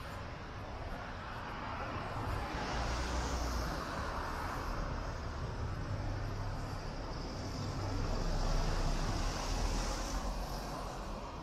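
Road traffic passing on a city street: a steady rumble and tyre hiss that swells as vehicles go by, loudest about three quarters of the way through, then eases.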